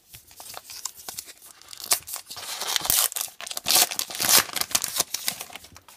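A paper trading-card pack wrapper being torn open and crinkled by hand: a rapid run of crackling rips, loudest around the middle.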